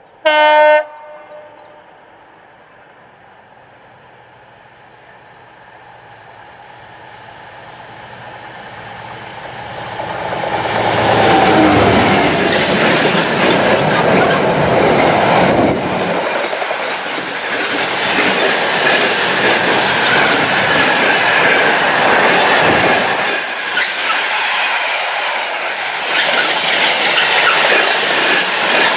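A Class 66 diesel freight locomotive's two-stroke V12 gives a short horn blast just under a second in, then its engine grows steadily louder as it approaches and passes about eleven seconds in, its pitch falling as it goes by. The container wagons then clatter past over the rail joints with a loud, continuous rattle.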